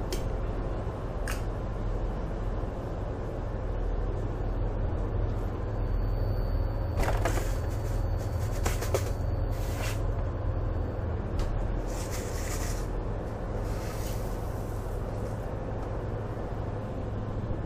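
Steady low drone of a ship's engines and machinery. Over it come scraping and clattering as a container is handled at a freezer, about seven to ten seconds in and again around twelve seconds.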